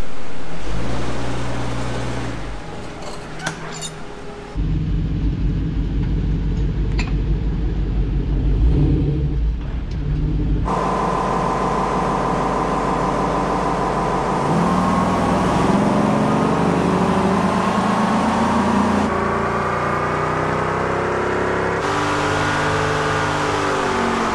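Vehicle engines running on a chassis dynamometer. First the Jeep Cherokee's engine falls in pitch and rumbles on the rollers. Then, after a cut, the Morrvair's engine accelerates hard, rising steadily in pitch to about 5,600 rpm near the end.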